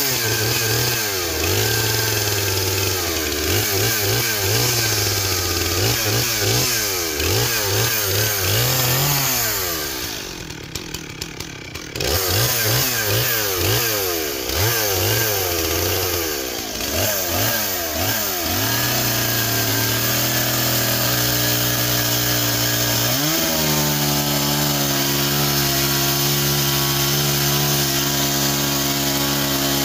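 Gas chainsaw cutting into a log, the engine revving up and down again and again as the throttle is worked, with a short quieter lull about ten seconds in. Near the end it is held at a steady high speed as the bar cuts deep into the wood, throwing chips.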